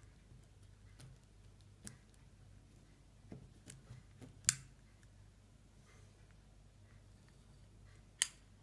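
Turn-knob switches on vintage Edison-style lamp sockets being clicked on, with lighter fumbling clicks first and then two sharp switch clicks about four seconds apart, each one switching on a filament bulb.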